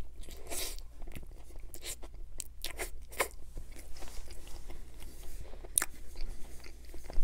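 Close-miked chewing of a mouthful of egg salad sandwich, with irregular sharp mouth clicks.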